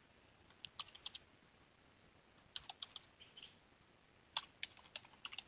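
Faint typing on a computer keyboard: three short runs of quick keystrokes with pauses between them.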